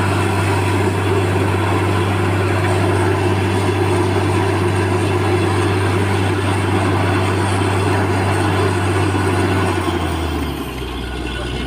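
Truck-mounted borewell drilling rig running steadily under load, its engine hum under the noisy rush of water and cuttings blown out of the borehole. About ten seconds in, the engine note drops lower and quieter.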